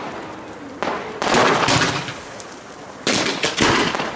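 Aerial fireworks shells bursting: sharp bangs, each followed by a dense crackle that dies away. Two bursts come about a second in and two more about three seconds in.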